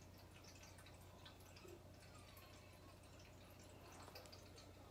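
Near silence: room tone with a faint steady low hum and a few faint small ticks.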